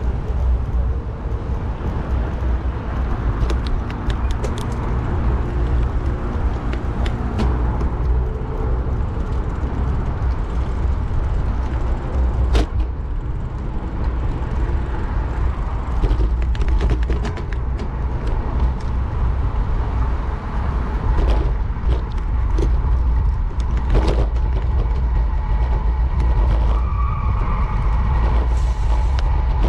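Wind buffeting the microphone of a bicycle-mounted camera while riding, a loud steady low rumble, with traffic noise mixed in and a few light clicks.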